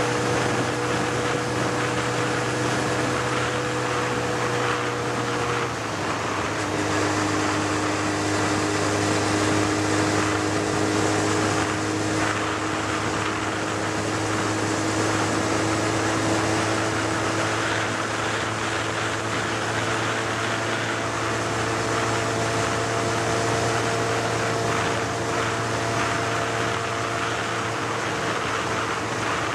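Vehicle engine running at road speed, heard from on board, with steady tyre and wind noise. About six seconds in the engine note drops at a gear change, then climbs slowly as the vehicle picks up speed.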